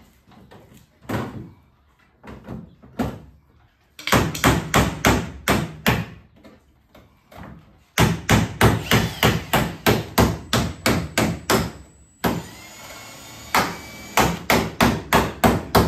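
Hammer blows on the sheet metal of a car's wheel arch, in quick runs of about four blows a second with short pauses between them. A second or so of steady mechanical whine fills one pause near the end.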